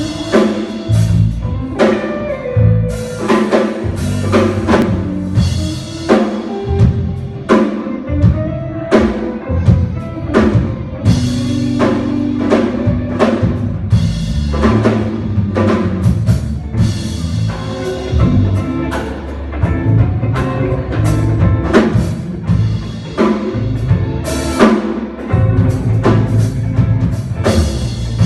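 Band music with a drum kit keeping a steady beat over bass and other instruments.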